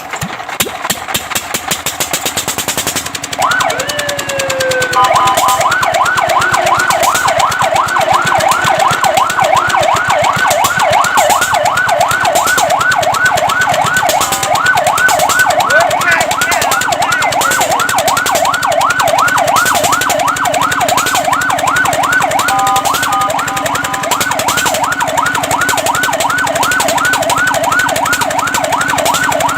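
Fire truck siren: an engine runs with a rapid rhythmic beat, then about three and a half seconds in the siren gives one rising-and-falling wail and goes into a fast up-and-down yelp. The yelp is briefly interrupted a little over twenty seconds in, then carries on.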